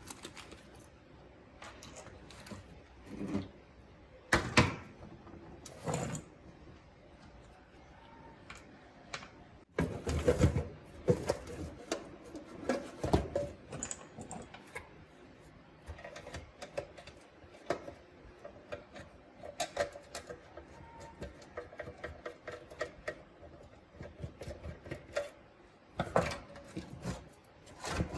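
Irregular clicking, tapping and clattering of hand tools and small plastic and metal parts being handled on a workbench during the restoration of an old radio-cassette recorder, with a few louder knocks.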